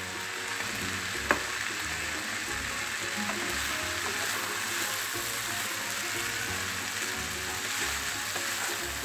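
Vegetable fried rice sizzling in a frying pan as it is stirred and tossed with a spatula, with one sharp click about a second in. Quiet background music with a steady beat plays underneath.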